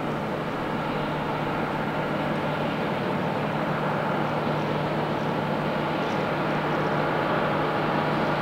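Diesel train running with a steady low engine hum, slowly getting louder.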